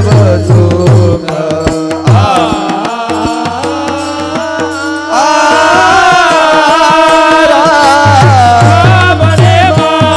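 Devotional kirtan music: a gliding melody over a steady held drone, with low hand-drum strokes in a quick rhythm near the start and again from about eight seconds in, and light cymbal clicks.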